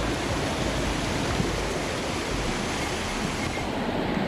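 Mountain headwater stream rushing steadily over rocks, a constant hiss of flowing water, with low wind rumble on the microphone during the first half.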